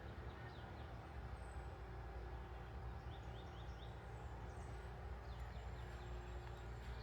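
Faint park ambience: a steady low hum of distant city traffic, with small birds giving short high chirps in quick runs of three or four, about half a second in, around three seconds in and again after five seconds.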